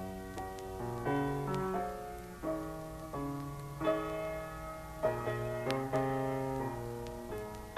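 Piano playing a soft passage of changing chords, with no singing.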